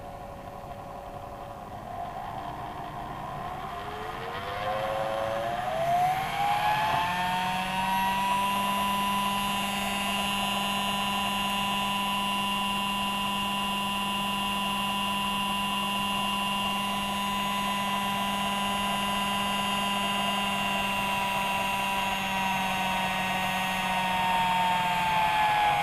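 Electric motor of a homemade guitar pickup coil winder spinning the bobbin: a whine that climbs in pitch over several seconds as it speeds up, holds steady at speed, then starts to drop near the end as it slows.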